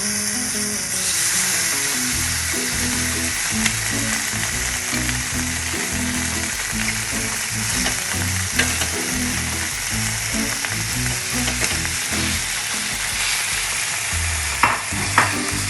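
Mushroom pepper sauce sizzling hard on a hot sizzler plate under a chicken steak: a steady loud hiss with occasional sharp crackles.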